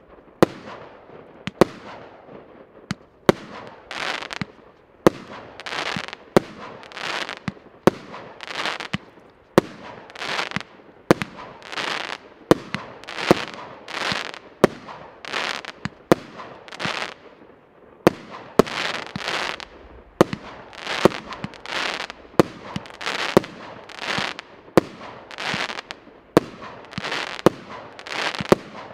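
A 200-shot, 1-inch 'Ivanhoe' consumer fireworks cake firing: a steady series of sharp bangs, roughly one a second, each followed by a short hiss of the burst.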